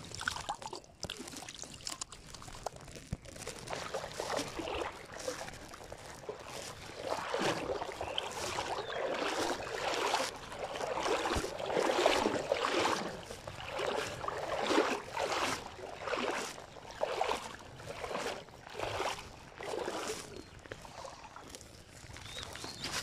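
River water trickling, then from about seven seconds in, water sloshing in rhythmic strokes about once a second.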